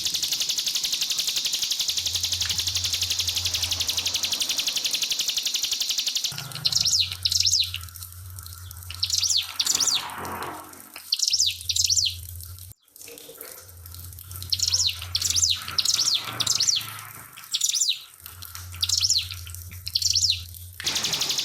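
Trickling water for the first six seconds. Then a ciblek pinus (a prinia) sings in short, repeated bursts of rapid high notes, about a dozen phrases with pauses between them. The trickle returns near the end.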